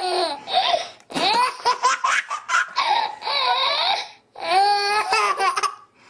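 A baby laughing hard in high-pitched belly laughs, in three bouts with short breaks between them.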